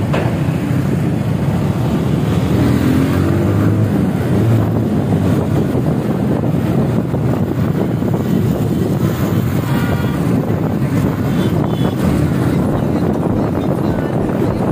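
Motorcycle running at speed, its engine buried in heavy wind noise on the microphone: a loud, steady low rumble.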